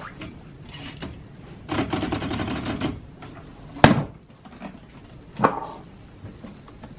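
Manual typewriter being handled: a fast run of mechanical clicks for about a second, two seconds in, then a loud sharp knock near four seconds and another a little after five.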